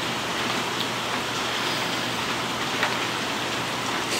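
Steady rushing noise, like heavy rain or fast water, with two or three faint light clicks.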